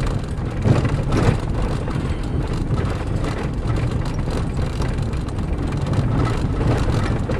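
Minivan driving, heard from inside the cabin: a steady engine and road rumble with rattling, and two bumps about a second in.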